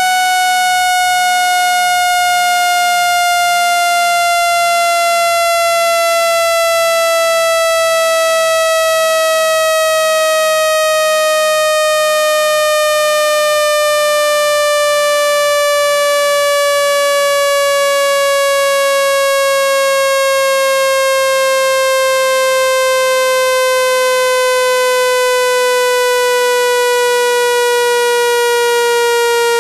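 Loud synthesized water-eject tone: one continuous buzzy tone with strong overtones, its pitch gliding slowly and evenly downward. It is played through a phone speaker to shake trapped water out of the speaker grille.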